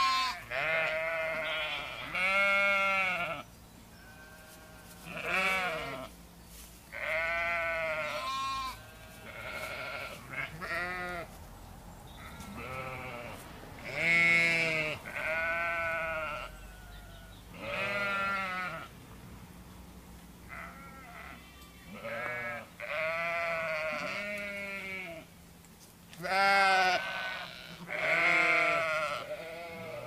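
A flock of sheep and lambs bleating repeatedly, a call every second or two from different animals, some calls overlapping and each one arching up and down in pitch.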